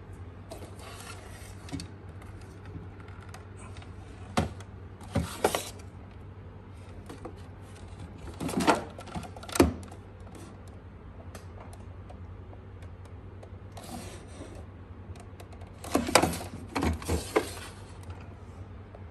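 Plastic TP-Link router casing being handled and tilted by hand: scattered knocks, clicks and rubbing in three clusters, the loudest around the middle and near the end, over a steady low hum.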